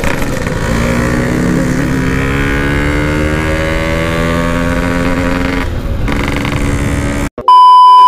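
Yamaha RX-King two-stroke single-cylinder engine running under way, its pitch rising slowly as the bike pulls through a gear, then dropping about five and a half seconds in. Near the end the engine sound cuts off and a loud, steady test-tone beep begins.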